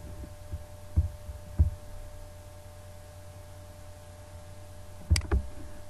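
Steady low electrical hum with a few faint high tones, broken by a few short clicks from the computer's mouse and keyboard: one about a second in, another a little later, and two close together near the end.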